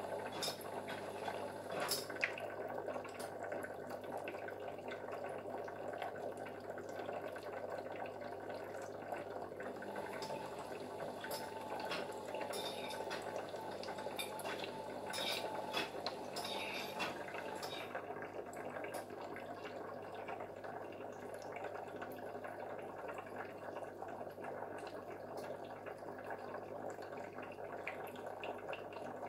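Steady trickling and dripping water, typical of an aquarium's water movement, over a low steady hum, with scattered light clicks.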